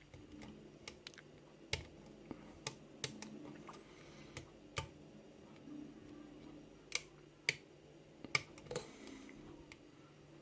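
Lock pick working the pins of a six-pin kick cylinder: a string of sharp, irregularly spaced metal clicks as pins are pushed and set, the loudest clicks about two thirds of the way in.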